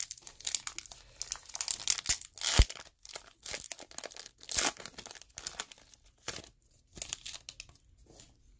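Foil wrapper of a football trading card pack crinkling and tearing as it is ripped open by hand, in a run of short crackles with the loudest rip about two and a half seconds in.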